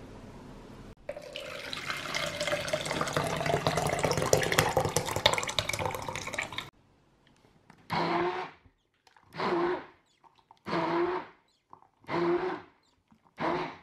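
Blended coconut milk pouring and splashing into a plastic measuring jug: one continuous pour for about six seconds, then five short separate pours.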